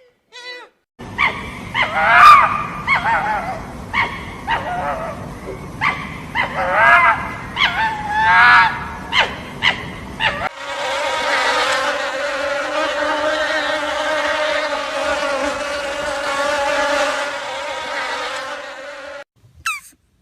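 A run of short, pitch-bending animal calls over a noisy background. About ten seconds in it gives way to a steady buzzing drone lasting about nine seconds, which stops suddenly.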